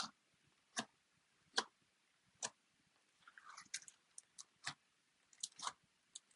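Slime being played with, making sharp sticky pops and clicks about once a second, with a short crackly stretch about halfway through.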